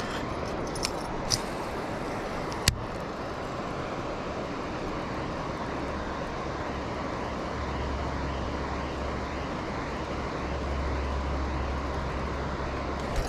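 A steady rushing noise, with a few sharp clicks in the first three seconds, the loudest near three seconds in, from a baitcasting reel being handled during a cast. A low rumble strengthens from about halfway.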